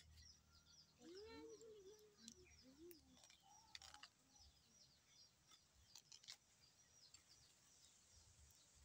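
Faint, repeated bird chirps throughout, short quick notes sweeping down in pitch. A lower-pitched call sounds about a second in and lasts a couple of seconds.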